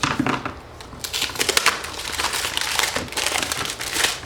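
Knife chopping a milk chocolate bar into small pieces, a rapid run of crunching cuts.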